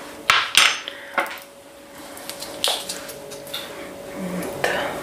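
Kitchen utensils clinking and knocking against a stainless steel saucepan: about six separate sharp clicks spread over a few seconds.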